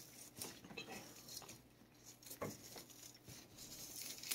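A cat chewing and licking a treat: faint, irregular clicks and smacks, one louder about halfway through.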